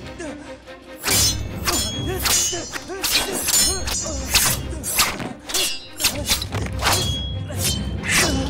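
Fight-scene sound effects: from about a second in, a rapid run of sharp blows and metallic clangs from a sabre fight and hand-to-hand brawl, over a film music score.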